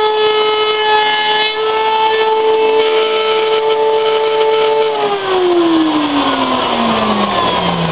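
Router motor in a router table running at full speed with a steady high whine, then switched off about five seconds in, its pitch falling smoothly as the bit spins down.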